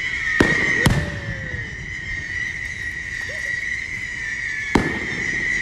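Fireworks going off: three sharp bangs, two in quick succession about half a second in and one near the end, over a steady high whistle.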